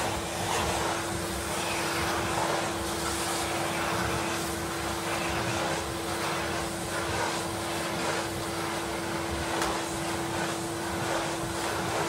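A 1985 cylinder vacuum cleaner running with a steady motor hum and a constant whine. Its hiss of suction swells and fades as the floor tool is pushed back and forth over carpet.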